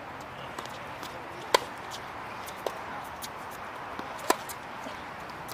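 Tennis ball struck by rackets twice, about three seconds apart, each a sharp pop with a short ring. Fainter taps fall between, such as the ball bouncing on the court.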